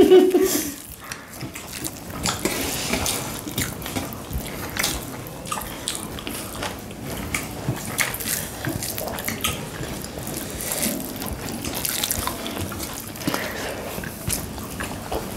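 People eating rice and curry with their hands: irregular wet clicks and smacks from hands mixing food on the plates and mouths chewing.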